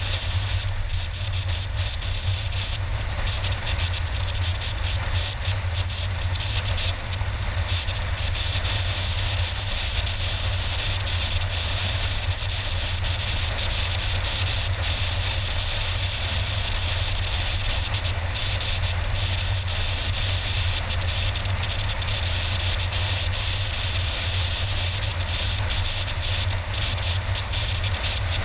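Steady road and engine noise of a car driving at speed, heard from inside the car: a constant low rumble with an even hiss above it.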